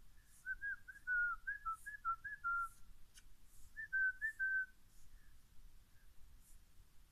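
A person whistling short, chirpy notes to coax a puppy: two quick runs of clear whistles, many with a falling hook, the second run shorter.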